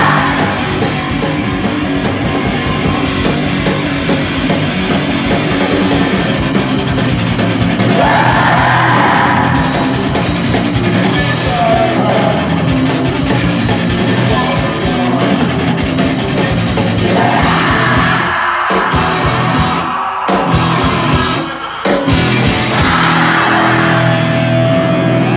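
Live rock band playing loud: electric guitar through an amplifier, bass, and a drum kit, with a vocalist yelling short phrases into a microphone about every eight seconds. The band stops short a few times around twenty seconds in before coming back in.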